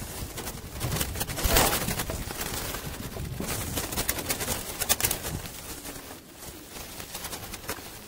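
Doves in a wire-mesh aviary, wings flapping and fluttering in short bursts, the loudest about a second and a half in, with some cooing.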